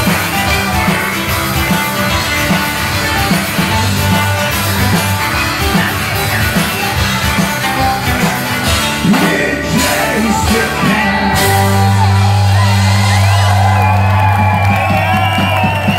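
Live rock band (two guitars and a drum kit) playing amplified in a tent. About eleven seconds in, the busy drumming drops away and a low chord is held and rings on, with wavering high notes above it.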